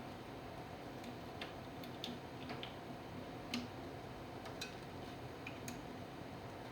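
Irregular light clicks and ticks from small parts being handled while a wiring connector is cleaned, over a faint steady hum.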